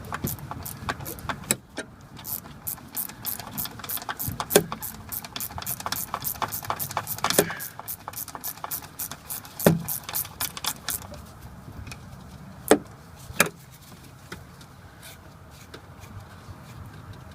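Ratchet wrench clicking in a fast, even run as a 10 mm bolt on the gear select cable mounting is turned, followed by a few separate sharp knocks of metal on metal.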